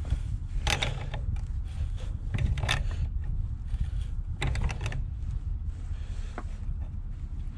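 Metal tool work: groups of sharp clicks and clinks about a second in, near three seconds, near five seconds and once more later, over a steady low rumble.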